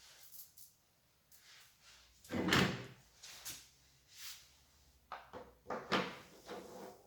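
Unpacking handling noises: irregular scrapes, rustles and knocks of a box and its contents being moved, the heaviest about two and a half seconds in and a quick cluster of shorter ones near the end.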